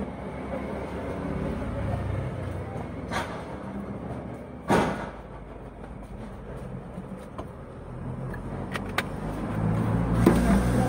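Hands working in a Mitsubishi L300 van's under-seat engine compartment during an oil top-up: one loud knock a little before the middle, a softer one earlier and a few light clicks later, over a low steady vehicle rumble that grows louder near the end.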